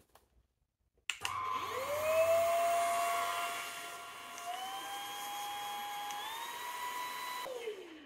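AOLOKO cordless stick vacuum's motor switched on with a click about a second in, whining up to speed. Its pitch steps up twice as it is switched through its three speed settings, then it winds down shortly before the end when switched off.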